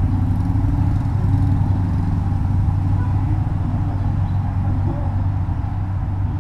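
Motorcycle engine idling close by: a steady low rumble with a fast, even pulse.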